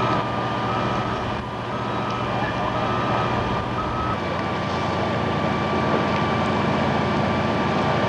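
A fire engine's backup alarm beeping about once a second over its running engine. The beeps stop about four seconds in as the engine note changes.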